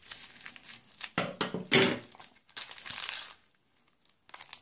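Scissors cutting open a small foam-wrapped plastic packet, and the plastic crinkling as the packet is handled and opened. Irregular rustles and snips, loudest about one and a half seconds in.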